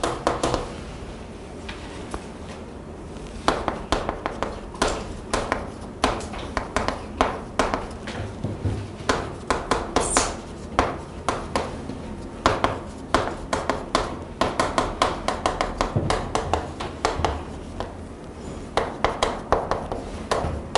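Chalk tapping and scratching on a chalkboard while someone writes: quick runs of sharp taps, each stroke a click, with short pauses between words.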